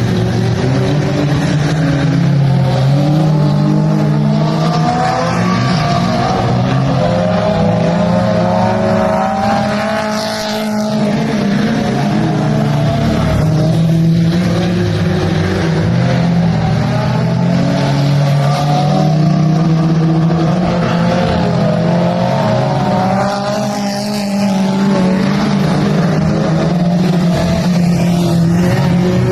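Dirt-track mini stock race car's engine running hard at racing speed, its pitch wavering, easing off briefly twice about fourteen seconds apart.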